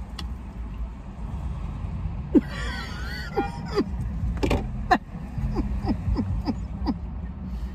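Steady low rumble of an idling car heard inside the cabin, with a few short bursts of women's laughter from about two to five seconds in.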